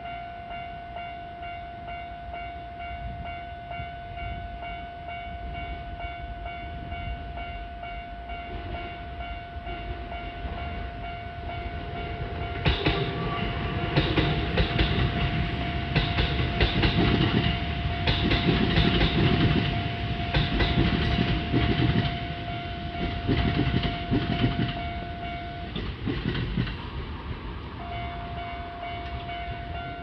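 Level crossing warning bell ringing steadily while a Kintetsu train passes over the crossing from about 13 seconds in, its wheels clattering over the rail joints. The bell stops a little after the train has gone and starts ringing again about two seconds later.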